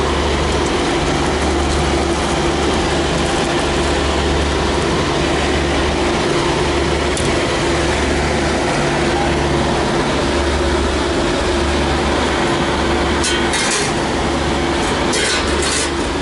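Steady, loud mechanical drone with a constant hum from the food truck's running machinery. A few short metallic clatters come near the end.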